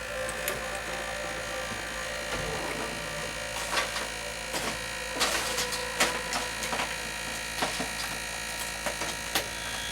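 Sony BDP-S380 Blu-ray player running with a steady mechanical buzz, the unwanted noise of the second fault. Several light clicks and taps are heard over it, from the player being handled.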